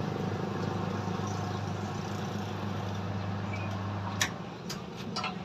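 A steady motor hum that cuts off with a sharp click about four seconds in, followed by a few more short clicks.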